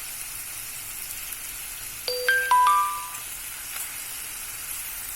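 Chilli chicken stir-fry sizzling steadily in a hot pan. About two seconds in, a short run of four bright, ringing chime notes sounds over it.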